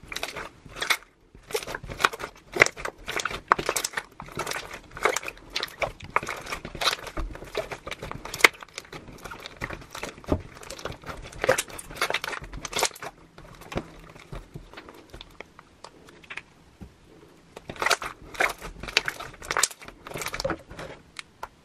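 White glue-and-borax slime being squeezed and kneaded by hand, giving an irregular run of wet clicks, crackles and small pops as air is pressed through it, with a lull of a few seconds past the middle before it picks up again.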